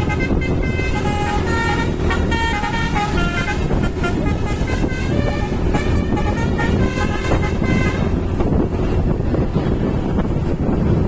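A bus's telolet horn, a Basuri multi-tone horn, playing a melody of short changing notes over the steady rumble of road traffic. The horn stops about seven and a half seconds in, leaving only the traffic rumble.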